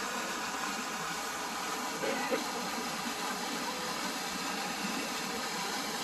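Fountain jets splashing down into their pool: a steady rushing hiss of falling water. Faint voices come through briefly about two seconds in.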